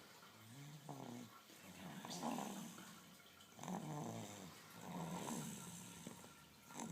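Snoring, a rasping, rattling breath that swells and fades about every one and a half seconds.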